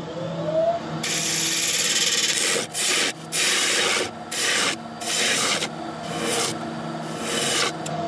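A gouge cutting a spinning monkey puzzle wood blank on a Record Power lathe: about half a dozen hissing cuts lasting from half a second to a second and a half, with short breaks between them, over the steady hum of the lathe motor. A short rising whine near the start.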